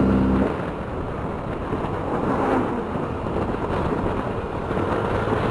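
Riding noise from a Yamaha Aerox scooter on the move: a steady rush of wind and engine noise on the mounted camera's microphone. A music track cuts off about half a second in.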